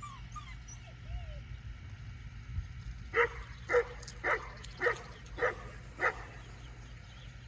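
Newfoundland dog barking six times in a steady series, about one bark every half second, starting about three seconds in.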